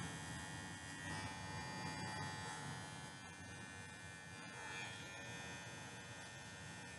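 Corded electric pet clippers running with a steady buzz as they shave a puppy's curly coat.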